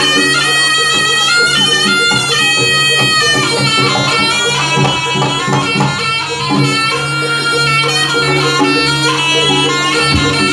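Jaranan accompaniment music, a Javanese slompret shawm playing a nasal, wavering melody over steady held low tones, with a few drum strokes.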